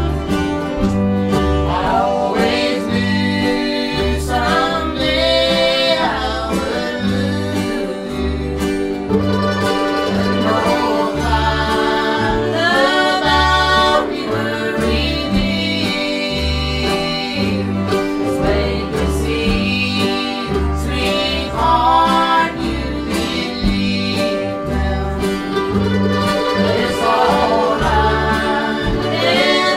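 Acoustic bluegrass string band playing: fiddle melody over mandolin chop and a steady upright bass line. Two voices come in singing near the end.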